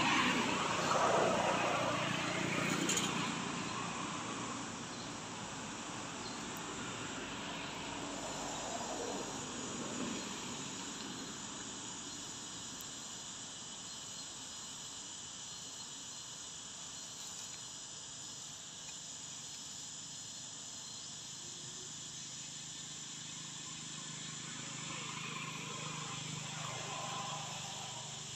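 Steady high-pitched chirring of insects. A passing vehicle fades away over the first few seconds, and a similar noise swells briefly near the end.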